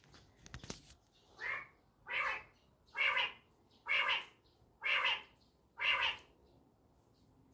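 A bird calling six times, about once a second, each call short and alike, after a brief rustle at the start.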